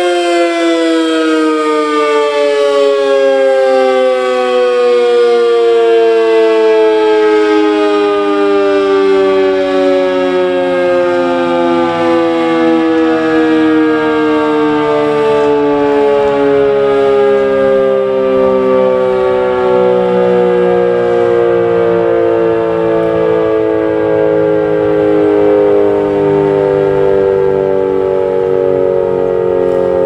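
Sentry 40V2T dual-tone outdoor warning siren winding down, its two-note chord sliding slowly and steadily lower in pitch as the rotors coast after shutting off.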